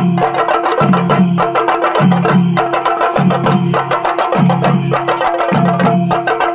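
Chendamelam: an ensemble of chenda drums beaten with sticks in fast, dense strokes, over a low beat that repeats about once a second.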